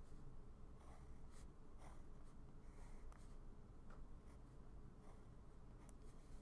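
Faint scratching of a Muji pen's tip on sketchbook paper: a string of short strokes, roughly one or two a second, as small cubes are drawn line by line.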